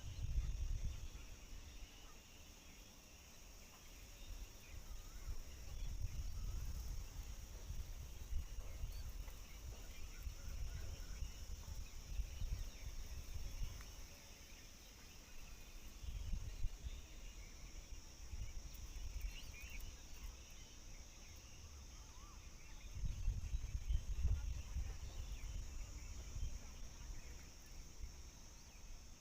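Outdoor ambience with a steady high insect drone and faint scattered bird chirps. Loud low rumbles come and go in several stretches, and are the loudest part of the sound.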